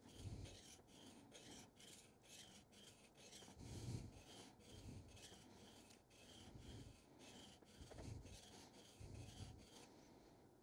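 Steel carving gouge rubbed back and forth on a Japanese waterstone, about three faint scraping strokes a second with a few dull knocks among them. The strokes grind the gouge's primary bevel until a burr forms on the inside edge, and they stop shortly before the end.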